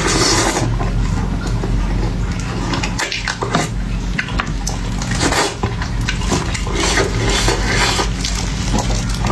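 Close-miked eating sounds: irregular chewing and mouth noises with quick clicks and clinks of utensils against a dish, over a low steady hum.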